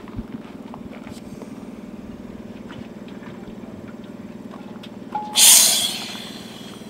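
A short burst of compressed air hissing from a scuba cylinder and regulator, about five seconds in, loud at first and fading away over about a second. Before it, faint clicks of the gear being handled over a steady low hum.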